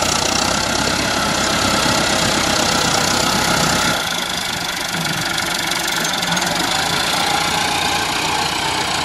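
Massey Ferguson 385 tractor's four-cylinder diesel engine running steadily under load as its front blade pushes soil. The sound changes about four seconds in, losing much of its low rumble.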